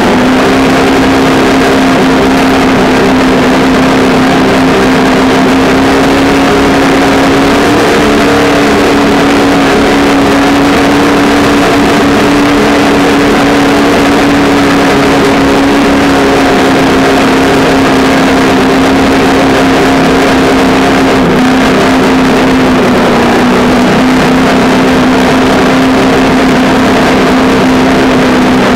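Traxxas Slash 2WD RC truck's electric motor and gear drivetrain running at a fairly steady speed, heard through its onboard camera as a loud, constant whine over a rushing noise from driving over grass.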